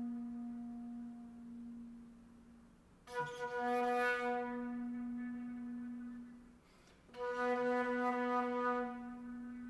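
Solo concert flute holding long, low notes on one pitch. The first note fades away, and the same note is struck again with a loud, breathy attack about three seconds in and again about seven seconds in, each one held and slowly dying away.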